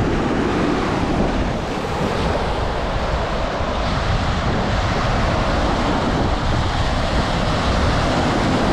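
Baltic Sea waves washing onto the beach, a steady rushing sound, with wind rumbling on the microphone.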